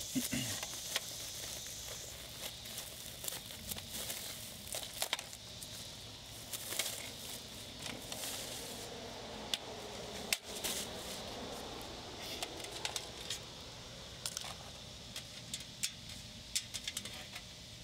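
Plastic bag and bubble wrap crinkling and rustling as they are handled and pulled off a license plate frame, with scattered small crackles and taps.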